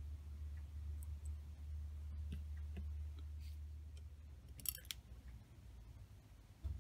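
Faint small clicks and taps of tweezers and a wooden clothespin being handled on a tabletop, with a short cluster of sharper clicks just under five seconds in, over a low steady hum that fades partway through.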